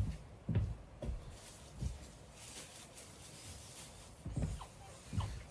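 An American Bully dog making a few short sounds, scattered, with a quieter stretch in the middle.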